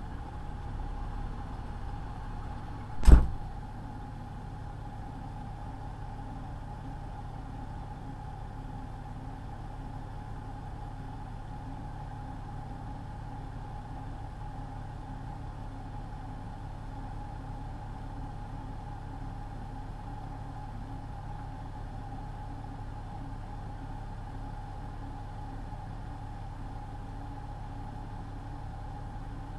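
Semi truck's diesel engine idling steadily, a low hum with a few steady tones, heard from the dashcam inside the cab. One loud sharp knock about three seconds in.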